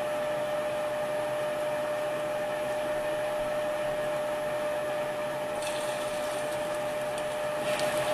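Steady whir of a countertop convection air grill's fan, with a constant hum tone running through it. Over the last couple of seconds a higher sizzle of fish patties frying in hot oil joins in.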